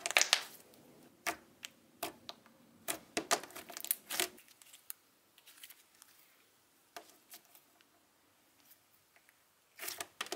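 Soft butter slime being pressed, stretched and folded by hand, giving quiet sticky clicks and crackles. They come thick in the first few seconds, thin out, and pick up again near the end.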